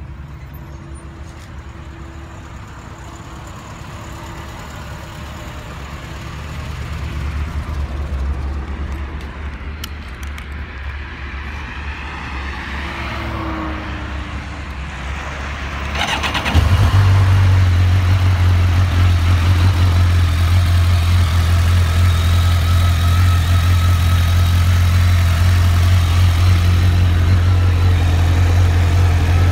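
BMW K1200R's inline-four engine cranked on the starter and catching just past the middle, then idling steadily. Before it starts, a steady low hum is heard.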